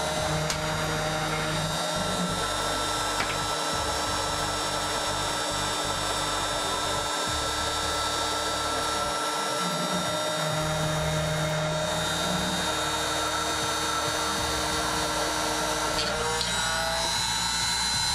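CNC milling machine cutting with a 1/8-inch end mill under automatic G-code control: a steady spindle whine with several held tones, over low stepper-motor tones that come and go as the axes move. The pitch of the tones shifts near the end.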